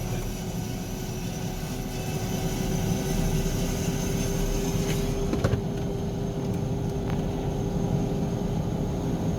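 Cessna 425 Conquest's right-hand PT6A turboprop running steadily at idle just after start, a constant rumble with a steady whine. About five seconds in, the high hiss drops away and a single click is heard.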